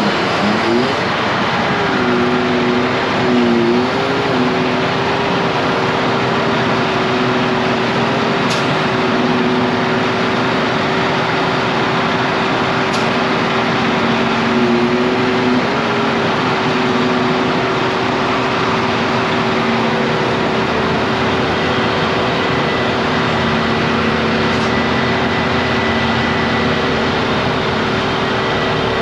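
Vehicle engine running steadily, its pitch dipping briefly a few times as if under changing load, over a constant rushing noise.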